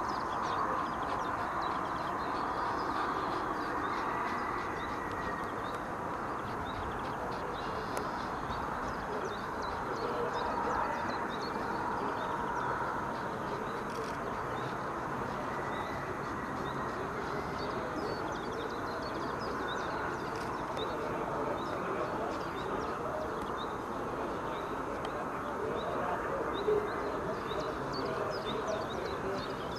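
Steady outdoor background noise with faint short chirps over it, and one short sharp sound near the end.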